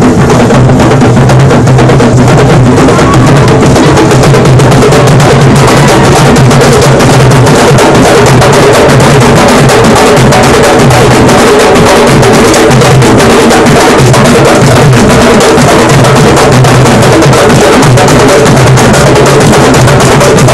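A candombe drum line of Uruguayan tamboriles, played with one hand and one stick, beating a dense, unbroken rhythm. It is loud and close.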